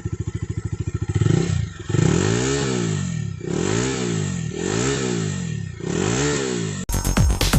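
Sports motorcycle on its stock exhaust idling with an even pulse, then revved in several quick blips that rise and fall in pitch. The sound cuts off suddenly near the end, giving way to electronic music.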